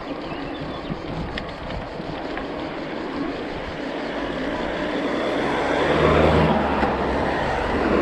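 Wind rushing over the microphone of a moving bicycle, then a car approaching and passing close by, its engine and tyres loudest about six seconds in.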